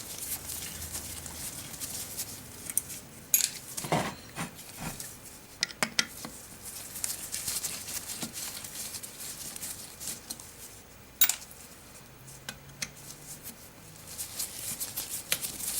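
Scattered metallic clicks, clinks and scrapes of hand tools and screws on the amplifier's metal chassis as it is taken apart, with one sharper click about eleven seconds in.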